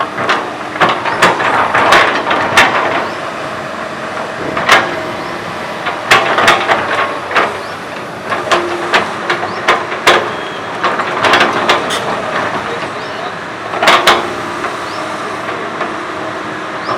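Komatsu PC200 hydraulic excavator at work: its diesel engine runs steadily under many irregular sharp clanks and knocks.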